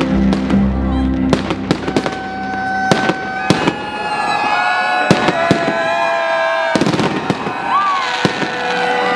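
Aerial firework shells bursting in a rapid run of bangs and crackles, over background music with long held notes.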